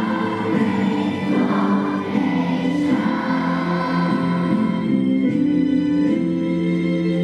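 A choir singing, holding long notes that change in steps.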